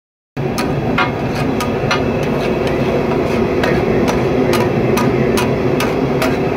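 A metal spatula taps and scrapes rhythmically on a large iron tawa, about three strikes a second, over the steady sizzle of chicken pieces steaming on the griddle. The sound starts after a brief gap at the very beginning.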